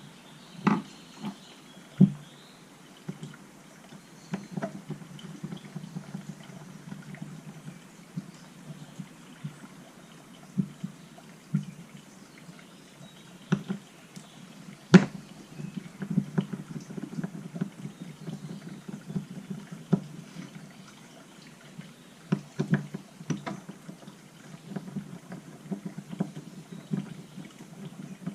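Small tools clicking, scraping and tapping irregularly on a chainsaw carburetor as it is taken apart, with one sharper knock about fifteen seconds in.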